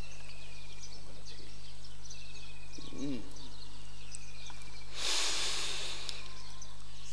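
Gap between recited verses: a steady low electrical hum from the amplification, with faint high chirping repeating throughout and a short hiss about five seconds in.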